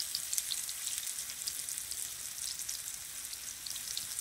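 Breadfruit wedges shallow-frying in hot oil in a pan, sizzling steadily with a dense patter of small crackles and pops.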